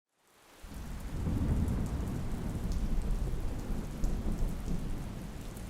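Steady rain with a low rumble, fading in over the first half second, with scattered light drop ticks.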